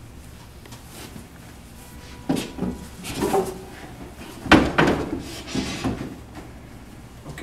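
Handling noises as a bedsheet is hung and pressed over a door: several knocks and bumps with fabric rustle, the loudest and deepest knock about four and a half seconds in.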